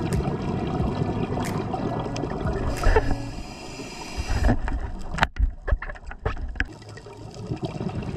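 Water sloshing and gurgling around an underwater camera housing held at the waterline, with scattered clicks. A hissing rush cuts off suddenly about four and a half seconds in, followed by a run of sharp pops and clicks as the camera goes back under.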